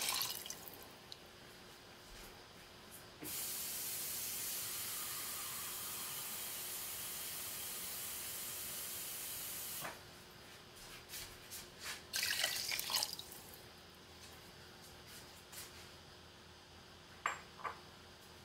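Water poured from a bowl into a pot of stir-fried soup vegetables and beef, splashing in the first half-second. Then a steady rush of water for about six seconds that starts and cuts off sharply, followed by a few irregular knocks and two sharp clicks near the end.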